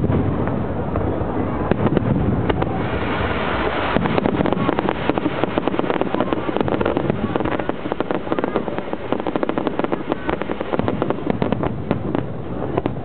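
Aerial fireworks display: a continuous run of bangs and rapid crackling that turns much denser about two and a half seconds in.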